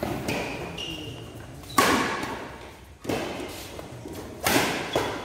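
Badminton rally in an echoing hall: three sharp racket strikes on the shuttlecock about a second and a half apart, with short squeaks of shoes on the court between them.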